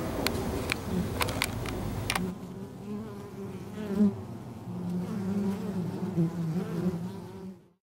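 Honey bee swarm buzzing: a steady, wavering hum of many bees. A few sharp clicks and a low rumble sound in the first two seconds, and the buzzing cuts off suddenly near the end.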